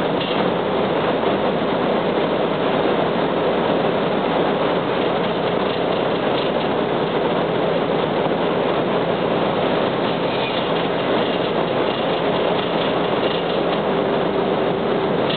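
Cabin of a 1998 UD (Nissan Diesel) KC-UA460LSN two-step city bus at a steady cruise: diesel engine drone and road noise, with a faint hum heard just at the start and again near the end.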